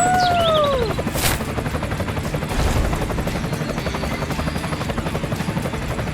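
A toy construction vehicle's motor running with a rapid, steady chugging pulse. A short falling, squeaky cry sounds in the first second, followed by a sharp click.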